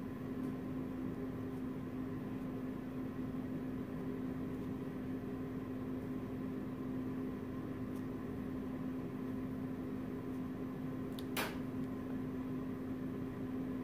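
Steady electrical hum with a low, even room hiss, from an appliance or fan running in the room. One short click about eleven seconds in.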